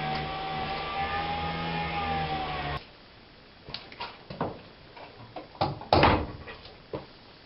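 Background music with held tones cuts off abruptly about a third of the way in. Several separate knocks and clatters follow, the loudest about two-thirds of the way through.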